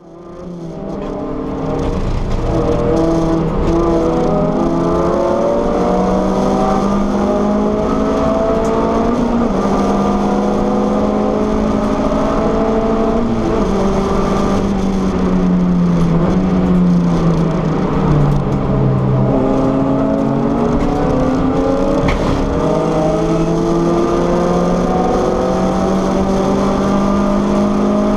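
VW Lupo GTI Cup race car's four-cylinder engine at racing speed, heard from inside the cabin, revving up and dropping back at each gear change. The revs sink for a few seconds around the middle, then climb again. The sound fades in over the first two seconds.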